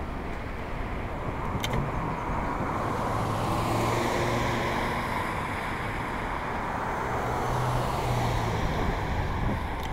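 Road traffic passing close by: a vehicle swells past about four seconds in and another near eight seconds, over a steady background rush. Two sharp clicks, one early and one near the end.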